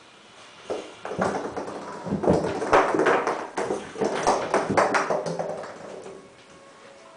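Kittens playing with small balls in an empty jetted bathtub: irregular clusters of taps and knocks as the balls bounce and roll and paws scrabble against the tub, dying away about six seconds in.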